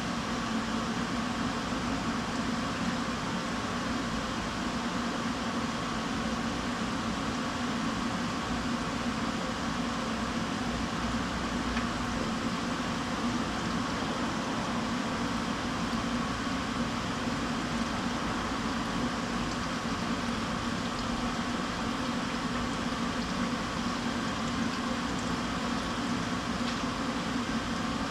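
A steady mechanical hum with an even whooshing noise, unchanging throughout.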